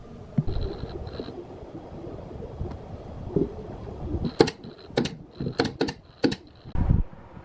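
Pneumatic nail gun fastening plywood cabinet panels: about five sharp shots in quick succession, with a hiss of compressed air before and between them. A dull thump follows just after the shots.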